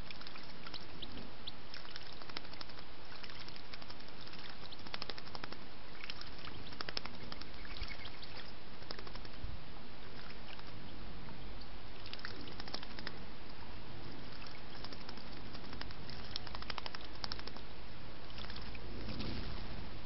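Steady trickle of water in a small garden pond, with bursts of quick, light splashing clicks as a blackbird moves in the shallows.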